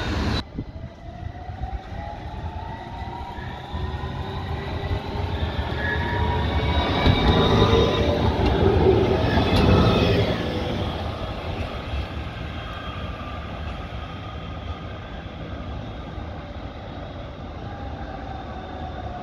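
Electric tram passing close by: a rumble of wheels on rails with the traction motors' whine gliding in pitch. It grows loudest about seven to ten seconds in, then fades as the tram moves away.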